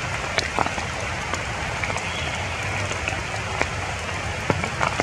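Steady rain falling on tree leaves, with scattered sharper hits of single drops.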